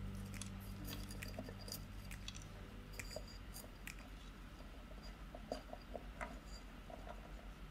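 Fingers pressing and firming potting soil into a small terracotta pot: faint crunching with scattered small clicks.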